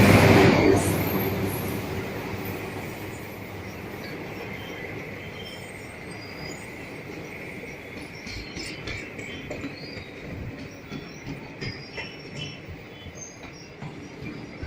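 Slow-moving train: a horn ends within the first second, then the rumble of the rolling cars fades, with a thin steady squeal of wheels on the rails and scattered clicks and knocks from the wheels over the track in the second half.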